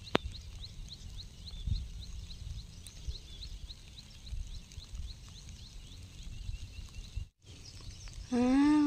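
Outdoor ambience by a stream: low wind rumble on the microphone and a rhythmic high chirping, about five chirps a second, that fades out after a few seconds. Near the end a person's voice starts up, loud and drawn out.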